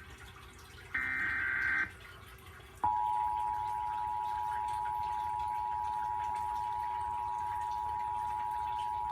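Emergency Alert System tones: a one-second burst of the SAME digital header data, then, about three seconds in, the EAS two-tone attention signal (853 and 960 Hz together) starts and holds steady.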